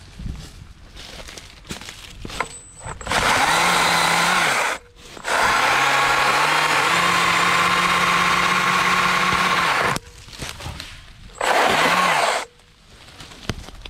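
STIHL MSA 160 C battery chainsaw, electric motor and chain running in three bursts: a short one of about a second and a half, then about five seconds cutting through a small sapling trunk, lower in pitch at first and then rising and holding steady, then a last brief burst near the end.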